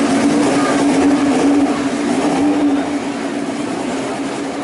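Mazda 767B's four-rotor rotary engine running at steady revs, one steady note over a dense mechanical rasp, easing slightly about three seconds in.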